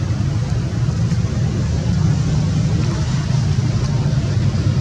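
A steady low rumble that stays even and unchanging throughout.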